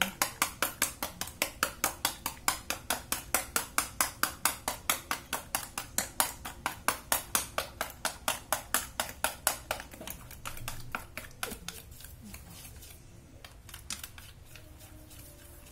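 Wooden chopsticks beating eggs and sugar in a metal bowl, clicking against its side in a fast, even rhythm of about five strokes a second. About ten seconds in, the clicks turn fainter and sparser.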